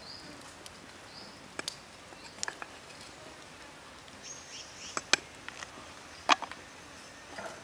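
Knife chopping green onion on a wooden board: a handful of sharp chops at uneven intervals, the one about six seconds in the loudest. Faint high chirps sound in the background.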